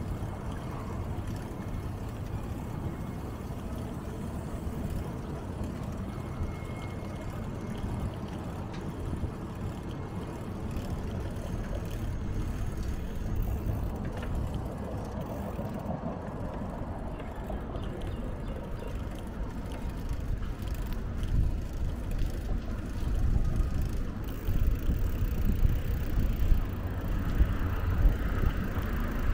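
Wind rumbling on the microphone during a bicycle ride, with road noise beneath; it grows louder and gustier over the last third.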